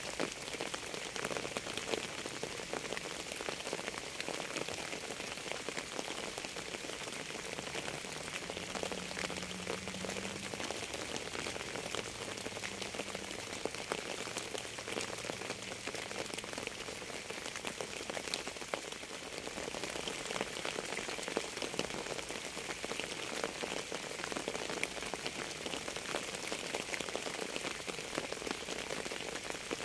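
Steady rain falling on a surface: a continuous hiss with many individual drops ticking.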